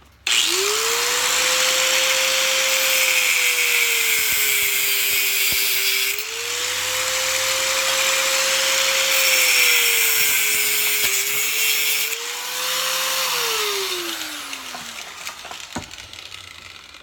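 Angle grinder with a cut-off blade starting up and cutting through copper to take off a soldered end; its motor pitch sags twice under load. It is switched off near the end and winds down with a falling pitch.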